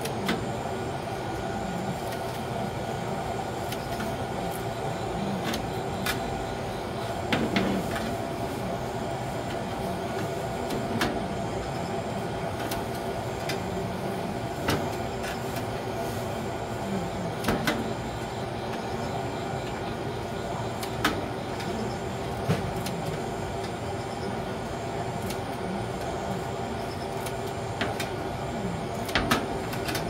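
Sharp metal clicks every few seconds as kitchen scissors snip grilled eel into pieces and metal tongs set the pieces on a wire rack, over a steady mechanical hum.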